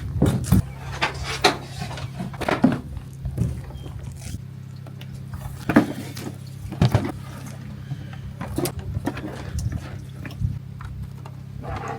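Scattered knocks and clicks of gear being handled and set up, over a steady low hum.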